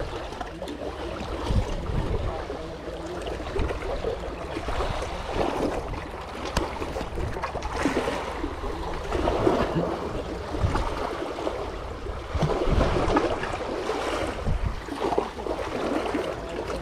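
Small sea waves lapping and splashing against a rocky shore, swelling and fading every second or two, with wind rumbling on the microphone.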